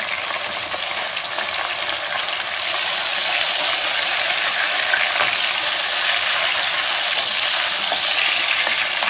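Bone-in mutton pieces sizzling in hot oil with browned onions, stirred with a wooden spoon in an aluminium pot; the sizzle grows louder about three seconds in and stays steady.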